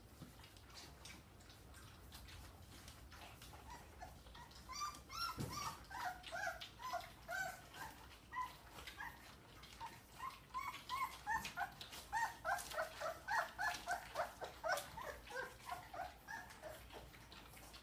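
Dogue de Bordeaux puppies whining and squeaking as they crowd a shared food dish: many short high whimpers that start about four seconds in and grow busier in the second half. Under them runs a quick wet clicking of lapping and smacking.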